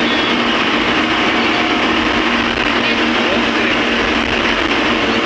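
Steady road and engine noise inside a moving vehicle's cabin, with a low steady hum.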